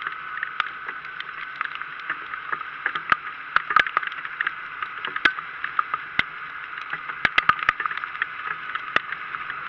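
Raindrops striking close to the microphone in quick, irregular ticks over a steady hiss of rain.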